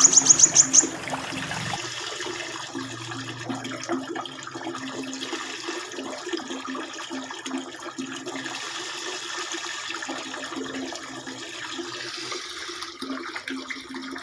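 A small songbird's fast, high-pitched trill of rapid repeated notes, cutting off within the first second, followed by steady running water with a low hum underneath.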